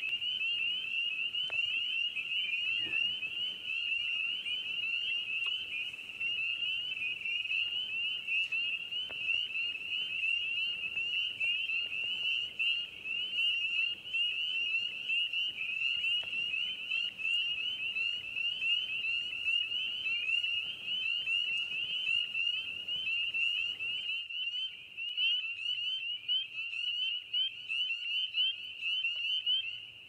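A chorus of spring peepers: many male frogs giving short, high, rising peeps that overlap into a steady chorus.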